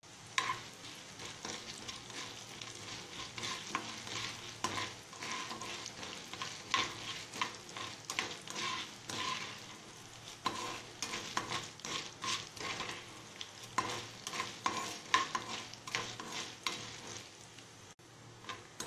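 Chana dal and urad dal sizzling in hot oil in a granite-coated pan, browning for the chutney's tempering, while a perforated metal ladle stirs them with repeated scrapes and clicks against the pan.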